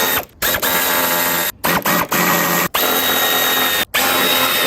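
Handheld power tool, such as a cordless drill or electric ratchet, run in about five trigger pulls of roughly a second each, with short pauses between; its motor whines and winds down at each release.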